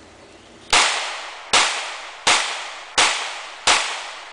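Diamondback DB9 9mm semi-automatic pocket pistol fired five times in steady succession, about one shot every 0.7 seconds, each sharp report trailing off in echo; the first shot comes just under a second in.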